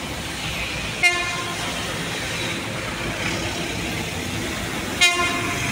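Approaching train sounding two short horn blasts about four seconds apart, over a steady rumble.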